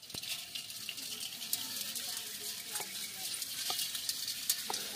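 Live freshwater crabs moving in a steel pot of shallow water: a steady crackling hiss dotted with small clicks of legs and claws against the metal.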